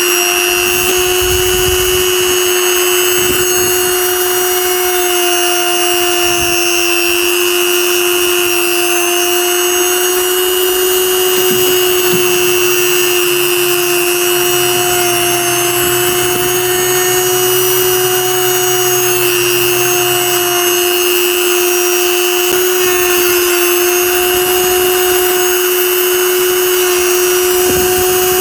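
Small electric power tool running continuously with a steady high-pitched whine, joined by a fainter low hum for several seconds in the middle.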